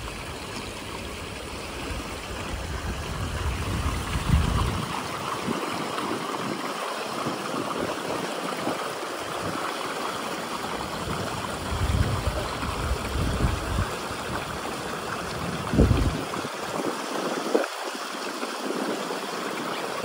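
Shallow water running and rippling steadily along the granite channel of the Diana Memorial Fountain, with a few low gusts of wind on the microphone.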